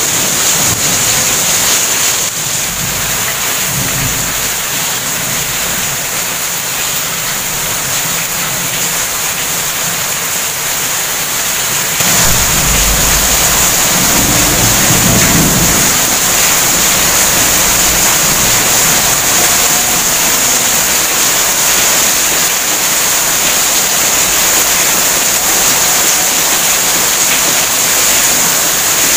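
Heavy rain pouring down steadily in a thunderstorm, getting louder about twelve seconds in. A low rumble of thunder comes in shortly after.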